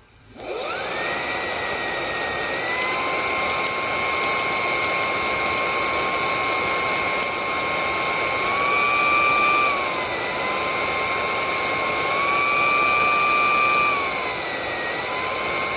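Meco Eleverde handheld brushless car vacuum running: the motor spins up about half a second in and runs with a steady high whine over a rush of air. Its pitch rises twice for a few seconds and drops back each time.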